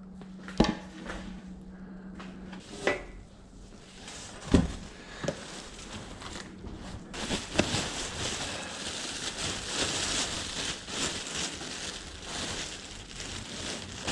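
Stored items being handled and moved: a few separate knocks and clunks, then from about halfway through a steady rustling and crinkling as bags and their contents are rummaged through.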